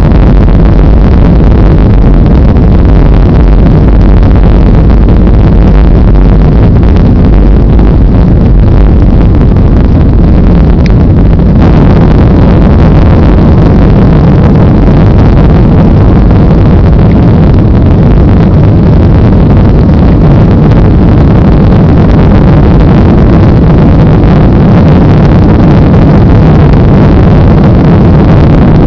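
Jet engines of a Boeing 737-800, its CFM56-7B turbofans, at climb thrust, heard from inside the cabin as a steady, loud rushing drone during the climb-out after takeoff. The drone brightens slightly about twelve seconds in.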